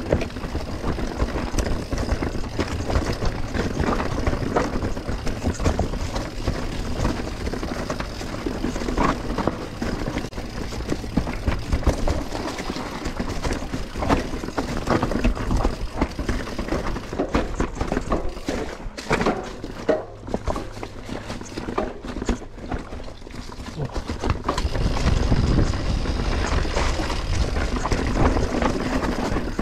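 Mountain bike riding down a dirt bike-park trail: tyres on dirt, with constant clattering and rattling of the bike over rough ground, and wind rumbling on the microphone.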